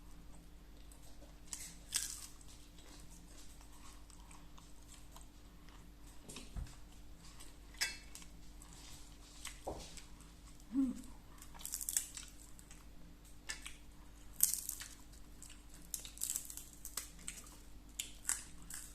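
A person eating: close chewing and mouth smacking with scattered short crisp clicks and crunches every second or two.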